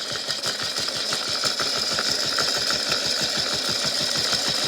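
Small electric motor of a toy washing machine running with a big rock inside, giving a steady high whine over a rapid, even rattle.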